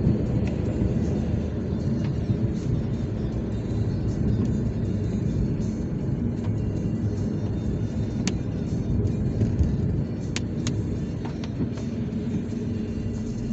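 Steady low road rumble of a car being driven, heard from inside the cabin, with music playing along under it. A few sharp clicks sound in the second half.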